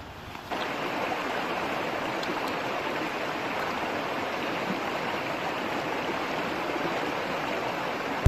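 Shallow rocky stream running over stones: a steady rushing of water that comes in suddenly about half a second in.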